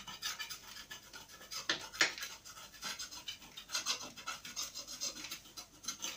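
A hand scraper rasping against a plastered wall in quick, repeated strokes, scraping off old dried filler, with two louder strokes about two seconds in.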